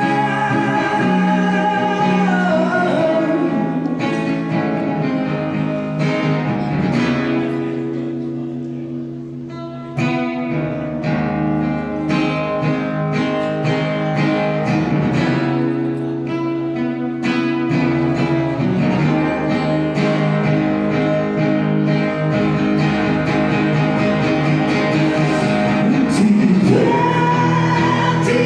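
Live band playing an instrumental passage led by guitar, with long held melody notes over a steady bass. The music drops back briefly about eight seconds in and comes in full again at ten seconds.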